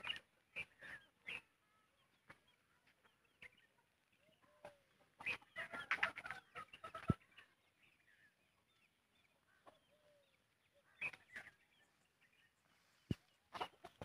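Chickens clucking and calling in short, scattered bursts, busiest in the middle of the stretch, with a few sharp clicks.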